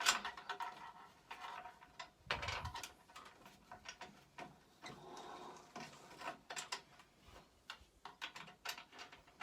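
Irregular clicks, knocks and rattles as the drive belt is worked back onto the sprocket of a Razor E200 electric scooter by hand, with a heavier knock about two and a half seconds in.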